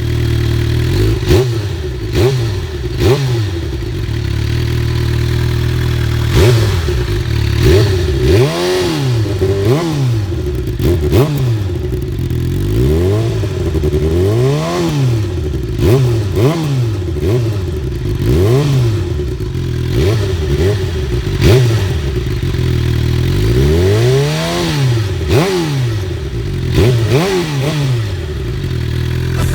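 2019 Suzuki GSX-R750's inline-four running loud through an M4 GP slip-on exhaust, idling steadily and blipped again and again. Each blip is a quick rise and fall of the revs.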